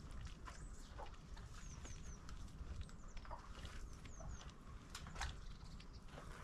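Footsteps of a person walking, faint irregular steps, with a small bird chirping twice in short runs of quick falling notes, three notes then two.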